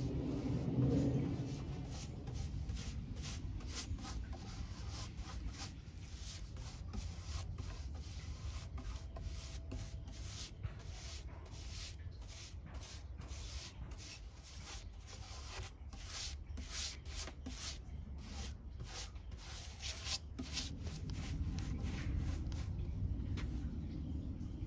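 Wide bristle paint brush swept back and forth over a wooden slab, spreading wet polyurethane in quick, regular scratchy strokes, about two to three a second. The strokes stop near the end as the brush is lifted away.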